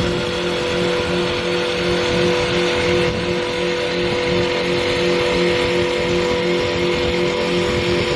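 CNC wood-turning lathe running: a steady motor hum and whine with a faint regular pulse underneath.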